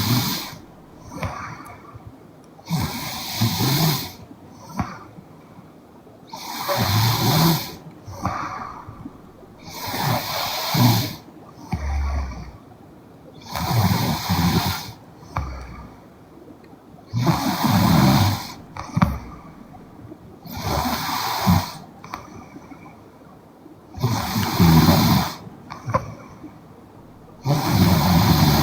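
A young woman snoring in her sleep, one snore about every three and a half seconds, each followed by a shorter, softer breath.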